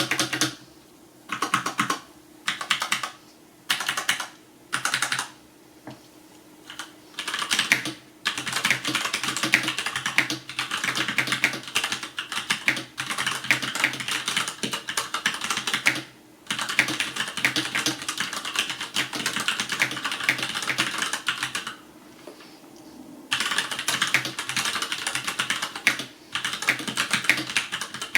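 Typing on a FILCO Majestouch Ninja TKL mechanical keyboard with Cherry MX Brown switches. It starts as short bursts of keystrokes with gaps between them, then becomes fast continuous typing with a few brief pauses.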